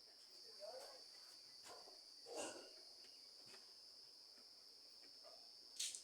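Quiet background with crickets trilling steadily, and a few faint clicks and knocks as small metal parts are handled.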